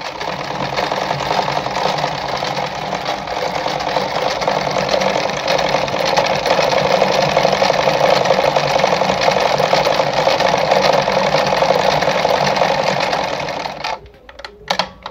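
Mercedes 340FB sewing machine running at speed, its needle clattering rapidly as it stitches a built-in decorative pattern stitch, then stopping abruptly about a second before the end.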